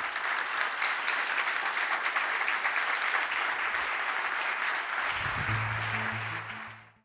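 Audience applauding, dense and steady. About five seconds in, a few low musical notes come in under the clapping, and then both fade out quickly near the end.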